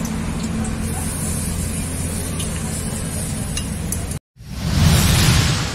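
Steady street background noise with a low hum and a few faint ticks, cut off suddenly about four seconds in. Then a swelling whoosh sound effect, the loudest sound, rises and fades over about a second and a half.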